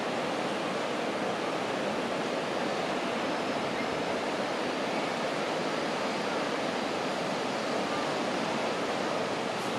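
Sea surf washing steadily onto the beach, a continuous rushing noise with no distinct breaks.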